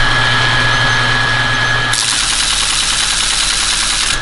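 Teletype Model 33 ASR running, its mechanism cycling with a loud, fast mechanical clatter over the hum of its motor; about two seconds in the clatter turns brighter and harsher. The machine now trips and cycles after an adjustment of the transmitter distributor block, which the restorer takes as the fault fixed.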